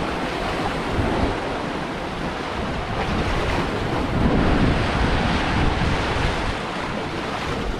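Sea surf washing below a coastal cliff, mixed with wind buffeting the microphone: a steady rushing noise with uneven low gusts.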